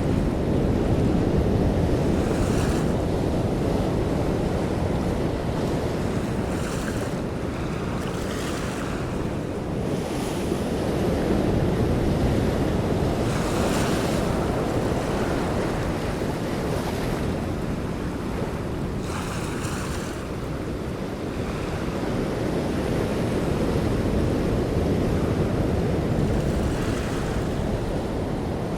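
Open sea heard from a boat: a steady rush of wind and water that swells and eases, with waves splashing against the boat every few seconds.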